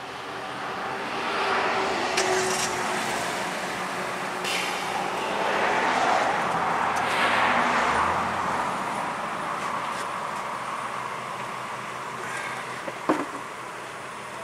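A road vehicle going by: a broad rush of road noise that swells over the first few seconds, holds, and slowly fades. A few sharp clicks are heard along the way, one near the end.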